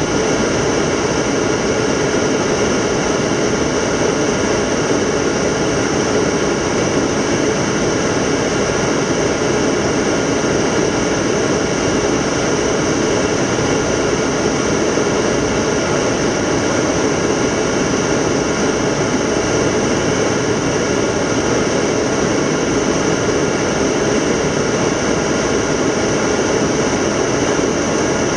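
Steady noise inside the flight deck of an Antonov An-124 Ruslan on approach, its four D-18T turbofan engines running evenly, with several faint steady whines in the noise.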